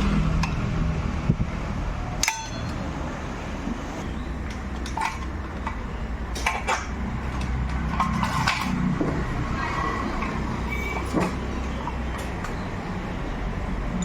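Metal tools and motorcycle parts clinking and knocking now and then during dismantling, the sharpest knock a little over two seconds in, over a steady low background hum.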